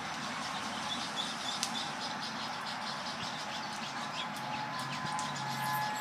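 Birds chirping over a steady hiss of passing road traffic; about four and a half seconds in, the EOWS 612 electronic civil defense siren begins to sound faintly, a steady tone that grows stronger as the monthly test starts.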